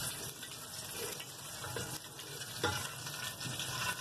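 Hot ghee sizzling in an aluminium pot as a wooden spatula stirs through it, with a light knock about two-thirds of the way through.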